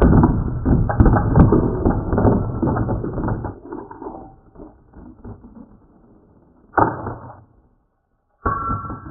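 Beyblade Burst spinning tops clattering and scraping in a plastic stadium right after launch, a dense rattle that dies away over about four seconds. One top burst apart on launch. Two short clatters follow near the end.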